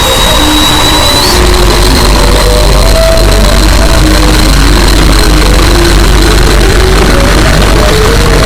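Heavily distorted, very loud alarm sound edit: a harsh wall of noise with a steady high whistling tone, short low notes underneath, and a deep hum that grows louder about a second in.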